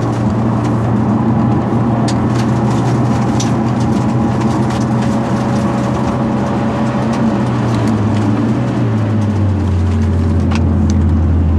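Hyundai Genesis Coupe 2.0's turbocharged four-cylinder engine running steadily under way, its note stepping down in pitch about nine seconds in.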